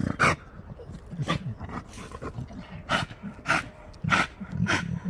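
American Pit Bull Terriers growling low and giving about six short, sharp huffs and snorts, unevenly spaced, as they dig and tug at roots in a burrow.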